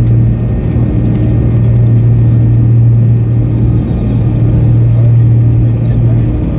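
Cabin noise of a McDonnell Douglas MD-82 on the ground after landing: its rear-mounted Pratt & Whitney JT8D turbofans running with a loud, steady low hum, heard from inside the cabin near the tail.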